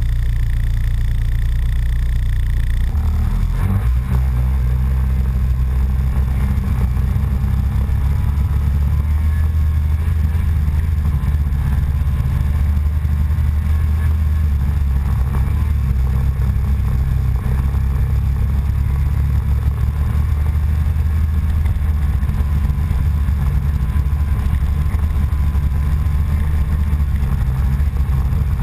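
Small off-road vehicle's engine idling, then pulling away about three seconds in and running steadily as it rides along a snowy track, with low rumble on the microphone.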